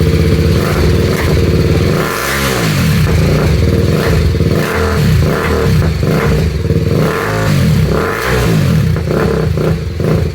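BMW G310 RR's single-cylinder engine running through an aftermarket exhaust: idling, then revved in a series of quick throttle blips from about two seconds in, easing back toward idle near the end.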